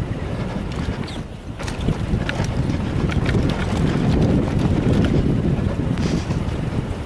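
Wind buffeting the microphone of a mountain bike rider's on-board camera during a fast descent, with scattered ticks and clatter from the bike over rough trail.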